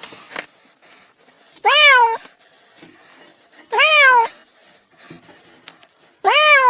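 Kitten meowing three times, about two seconds apart. Each call is short and high, rising then falling in pitch. The last call is cut off at the end.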